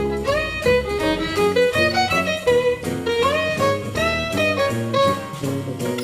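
Background music: a lively string tune with bowed violin notes sliding between pitches over a quick, steady rhythm.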